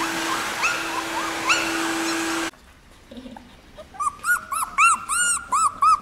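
A cordless stick vacuum cleaner runs with a steady hum, faint puppy squeaks over it, and cuts off abruptly about two and a half seconds in. After a short lull, a 17-day-old Border Collie puppy cries in a string of high, arching whines, about two to three a second.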